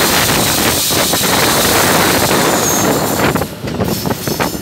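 Wind rushing over the microphone on the outside of a moving GE diesel-electric locomotive, mixed with the locomotive's running noise; it eases briefly about three and a half seconds in.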